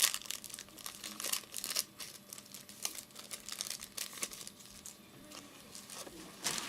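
A trading-card pack wrapper being torn open and crinkled by hand: a run of crisp crackles and rustles that thins out after about five seconds, with one louder crinkle near the end.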